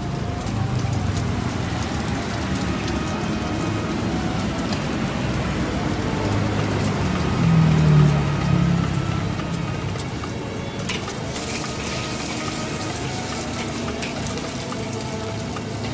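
Egg frying in hot oil in a steel wok over a gas burner, a steady sizzle. About eight seconds in, a brief louder low drone rises over it. From about eleven seconds in, a metal spatula scrapes and clinks against the wok.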